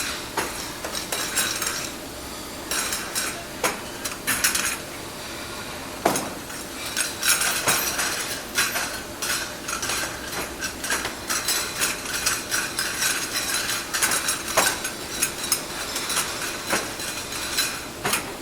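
Pieces of china ware clinking and knocking together as they are handled and checked for faults. The clinks come irregularly, several a second, each with a short bright ring.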